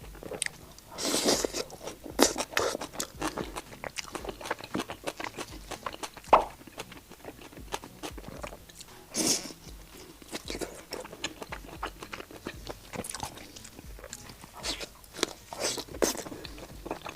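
Close-up crunching and chewing of crispy fried skewered food, with repeated sharp crunches and several louder bites.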